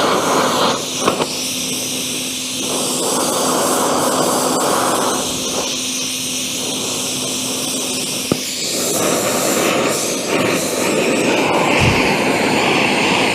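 Steady roaring hiss of a gas torch heating a bent steel mount, with a low steady hum through the middle and a couple of sharp clicks.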